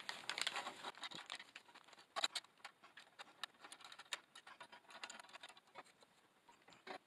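A plastic bag crinkles at first. Then come a scattering of small clicks and scrapes as 1/2-inch EMT set-screw connectors are handled and screwed into a metal junction box.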